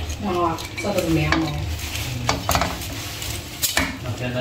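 Metal tongs clicking against a metal pot and rustling through a pile of cooked shrimp as they are lifted out, with a few sharp clicks over the steady scraping and rustling.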